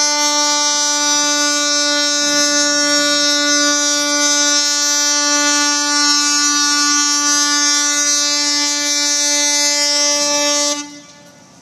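Car ferry's ship horn sounding one long, steady blast of about eleven seconds at a single low pitch, cutting off sharply near the end: a departure signal as the ferry leaves the quay.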